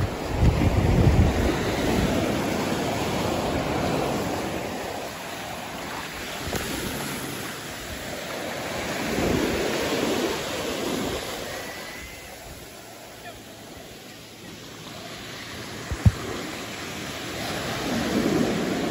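Small waves breaking and washing up a sandy beach, the surf noise swelling and easing every few seconds. Wind buffets the microphone in the first second or so.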